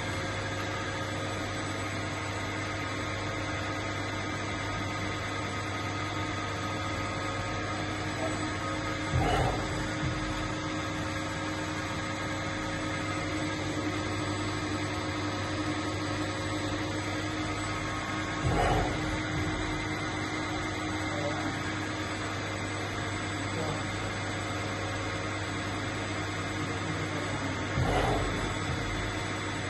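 EMCO PC Mill 125 benchtop CNC milling machine switched on, giving a steady electrical hum with several fixed whining tones. Three short, louder knocks come at even spacing, about nine seconds apart.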